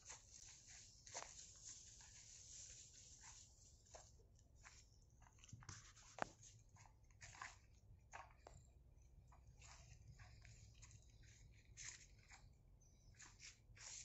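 Faint, irregular rustling and crackling of leaves and twigs brushing close to the microphone, with one sharper click about six seconds in.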